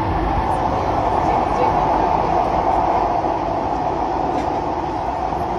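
SMRT C151B metro train's running noise heard from inside the passenger car: a steady rumble of wheels on rail with a hum around the middle of the range, swelling slightly and easing off toward the end, as the train travels at speed between stations.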